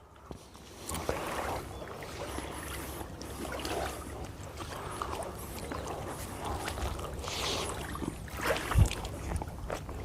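Lakeside ambience of water lapping with a low wind rumble, scattered small knocks and clicks, and one sharper thump about nine seconds in.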